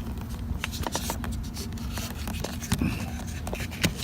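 Scattered light clicks and scrapes of hands pressing and working the plastic fasteners of a Toyota Camry's inside door trim panel to release them.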